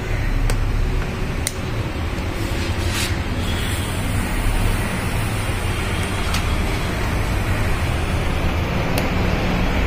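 Steady low rumble and hiss, with a few sharp metal clicks from pliers and a pointed tool working a deeply lodged nail out of a car tyre's tread.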